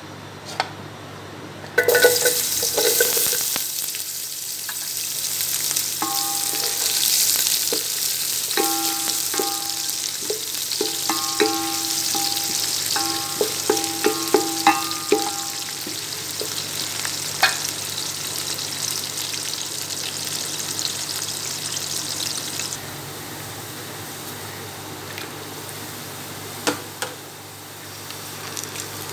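Sliced onions frying in hot oil in a steel pot: a sudden loud sizzle about two seconds in, then steady frying with scattered clicks of a spoon stirring against the pot. About three-quarters of the way through the sizzle falls to a quieter level.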